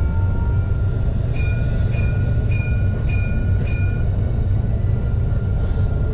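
Alstom Citadis low-floor tram running, with a steady low rumble of the wheels and running gear and a thin steady whine. A series of five short high beeps sounds from about a second and a half in to about four seconds in.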